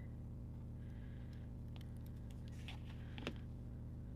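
Faint rustles and small ticks of paper stickers being handled and pressed onto a planner page, the clearest about three seconds in, over a steady low hum.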